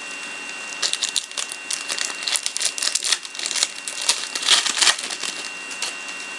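Crinkling and rustling of a trading card pack's wrapper being handled, in a quick irregular run of crackles that starts about a second in and dies away near the end.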